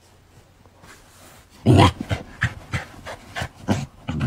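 Quick breathy huffs, like panting, starting a little under two seconds in and repeating several times a second.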